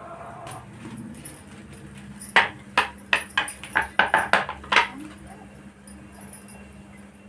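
A quick series of about ten sharp clacks, like kitchen utensils knocking together, over a couple of seconds, over a faint steady hum.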